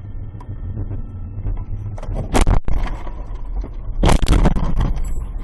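Car driving with a steady low engine and road rumble, broken by two loud bangs of impact, about two seconds apart.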